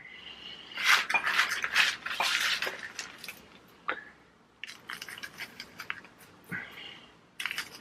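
Hands planting into a planter: two spells of rapid scraping and clicking as soil and pots are handled, with a few single knocks.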